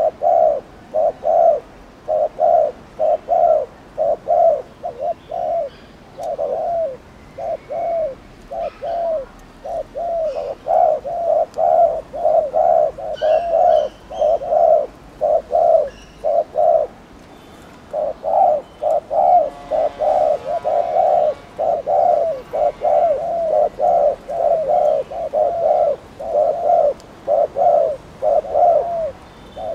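Spotted dove giving its 'gù' bowing coo: short, low coos in quick runs, with a pause of about a second near the middle. Faint chirps from other birds sound behind it.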